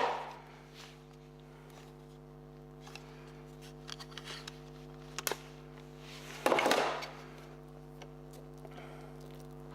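Small clicks and knocks of the compressor's plastic housing parts being handled during a teardown, with one louder scraping rasp about six and a half seconds in, over a steady electrical hum.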